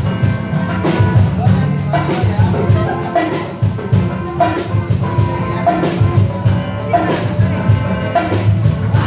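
Live band playing an upbeat dangdut song: acoustic guitar and drum kit keeping a steady beat.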